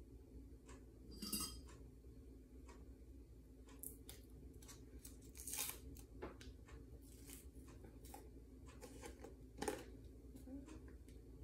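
Quiet room tone with scattered faint clicks and rustles of things being handled off to the side, and three louder short clicks: about a second in, midway, and near the end.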